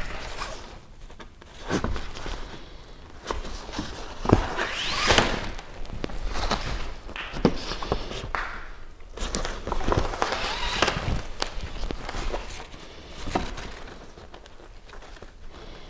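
Hands stitching a fabric kayak skin closed over the frame: the cloth rustles and swishes irregularly as thread is drawn through it and the seam is pulled together, with a few soft knocks.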